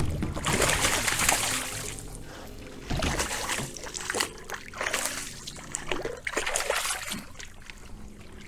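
Water splashing and trickling close to the microphone, a rushing splash in the first couple of seconds and then several short, separate splashes.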